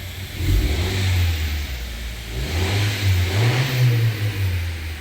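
Honda Civic engine running and being revved, now that the blown ignition-coil fuse has been replaced. It picks up about half a second in, rises in pitch around three and a half seconds in, then settles back.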